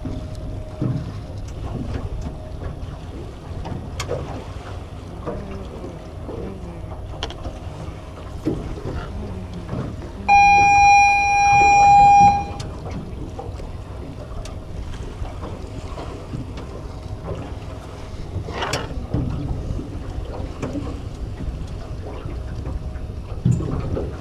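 Steady wind and water noise around a small boat, with wind on the microphone and a few light knocks. About ten seconds in, a loud steady tone sounds for about two seconds.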